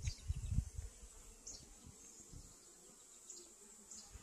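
Honeybees buzzing faintly around the hives, with a low rumble on the microphone in the first second.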